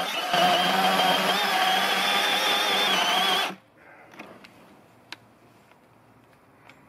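Milwaukee M18 cordless chainsaw cutting through a log under load with a steady whine, then cutting out abruptly about three and a half seconds in as its M18 High Output XC 8.0 battery overheats and shuts the saw down. A few faint clicks and rustles follow.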